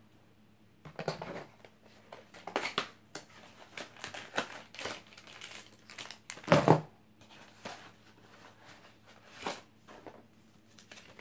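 Toy packaging being handled and opened: a cardboard box and clear plastic bags of spinning-top parts crinkling and rustling in an irregular run of crackles, with one louder crunch about six and a half seconds in.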